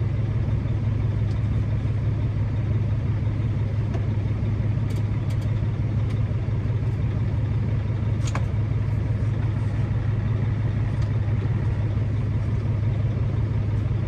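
Semi-truck's diesel engine idling, heard inside the cab as a steady low drone, with a few light clicks of dash parts being handled about five and eight seconds in.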